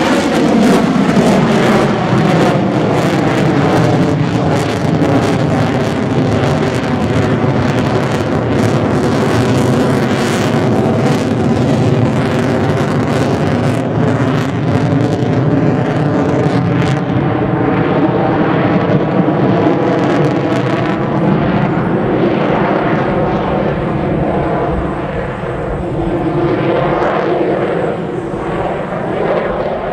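Jet noise from an F-22 Raptor's two Pratt & Whitney F119 turbofans, loud and continuous as the jet climbs and maneuvers overhead. A sweeping, phasing tone runs through it, falling in the first few seconds and rising again near the end.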